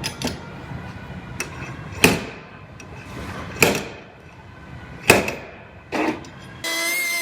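Slide hammer pulling on a tab welded to a steel quarter panel: three sharp metallic strikes, each ringing briefly, with a few lighter knocks between them. Near the end a power tool starts whining steadily.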